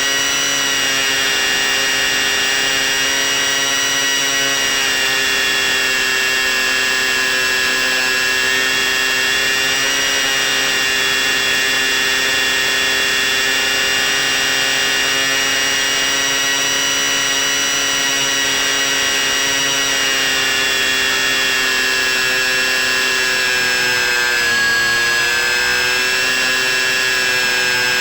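A C1 Chaser FPV model plane's motor and propeller heard from on board, a steady whine with small shifts in pitch as the throttle changes. Near the end the pitch dips briefly and then recovers.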